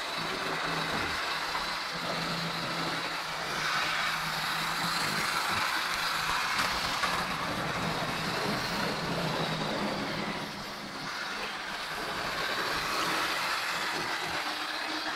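Model train running on a layout: a steady electric motor hum with the continuous rattle of wheels on the track.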